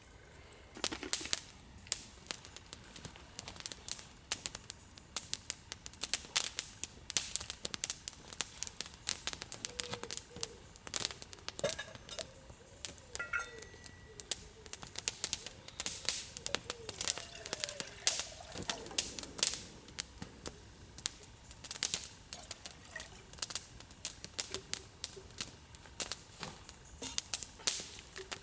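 Small wood campfire of split kindling crackling, with irregular sharp pops and snaps several times a second.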